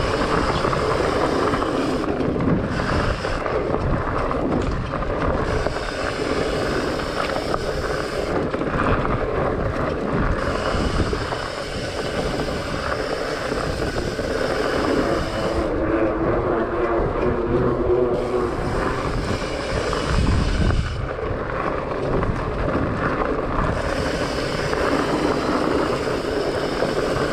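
Trek Farley fatbike ridden along a dirt forest singletrack: its wide knobby tyres rumble and crunch over the trail and the bike rattles without a break, with wind noise on the microphone.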